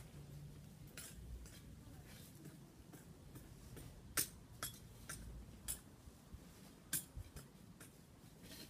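Hands working in a gravel-covered garden bed: scattered sharp clicks of small stones knocking together, with light rustling, the loudest clicks about four and seven seconds in.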